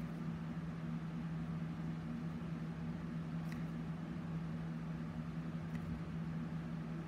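Steady low hum of room background noise, with a couple of faint light ticks.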